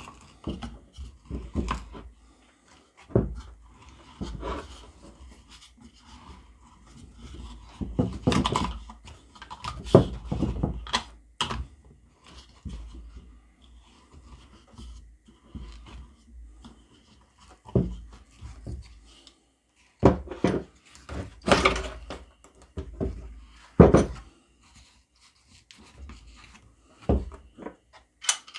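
Victorinox Venture Pro's screw-tipped spade bit being turned by hand to bore a hole: irregular scraping, clicks and knocks, with quieter stretches between.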